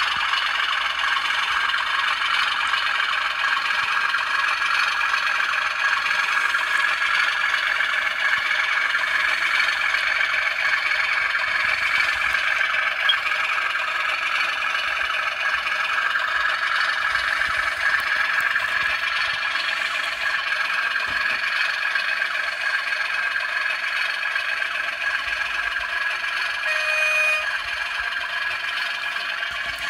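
Model railway diesel locomotives and flask wagons running on the track: a steady mechanical running sound, with a brief tone near the end.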